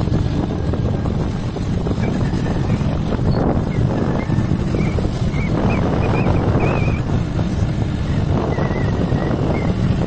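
Scooter engine running at a steady riding speed, with wind rushing over the microphone. A few short high chirps come and go through the second half.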